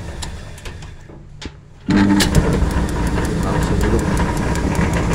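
Speed Queen gas dryer burner relighting: the sound dies down over the first two seconds, then about two seconds in the gas catches at once with a sudden low roar and steady hum, lit straight away by a new spark-type igniter without waiting for a glow element to turn red. A steady ticking runs throughout.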